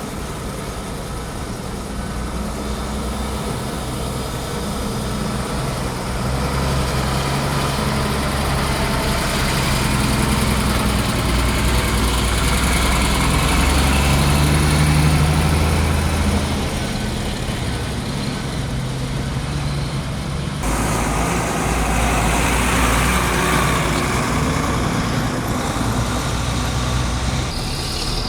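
Hino dump truck's diesel engine running while the truck tips its load of coal. The revs rise for several seconds around the middle and settle back, and the sound changes abruptly about two-thirds of the way through.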